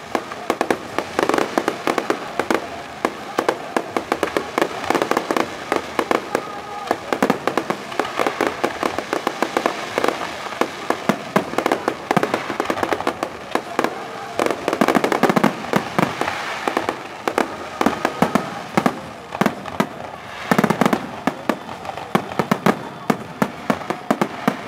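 Fireworks and firecrackers going off in a dense, continuous crackle of rapid bangs, with heavier clusters of blasts now and then.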